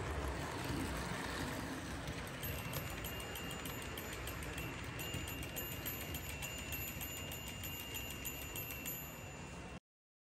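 HO-scale model freight train, pulled by a Tyco Union Pacific GP-20, running past on its track with a steady rumble of motor and wheels. From about two seconds in the cars' wheels click rapidly and evenly over the track, with a thin steady high ring above. The sound cuts off abruptly just before the end.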